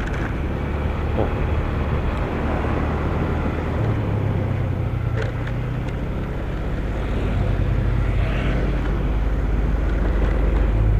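Yamaha Xeon 125 scooter's single-cylinder engine running steadily under way, with wind and road noise over it; it grows a little louder toward the end.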